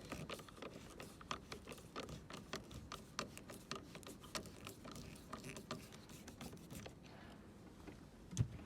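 Light, irregular clicks and taps of hand tools and plastic door trim being worked on while a screw is undone, several a second, with one stronger knock near the end.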